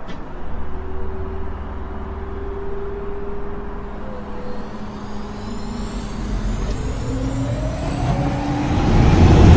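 Car engine running steadily, then revving up with a rising pitch and getting louder near the end.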